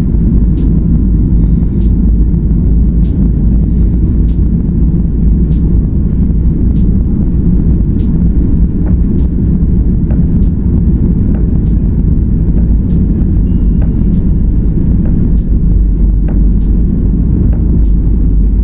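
Cabin noise of a Boeing 737 airliner rolling on the ground: a loud, steady low rumble from the jet engines and the undercarriage, with faint clicks at an even pace throughout.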